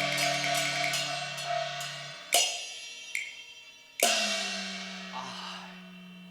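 Cantonese opera accompaniment between sung lines: held notes from the instrumental ensemble fade out, then two metal percussion strikes, cymbal-like, land about two and four seconds in, each left to ring and die away.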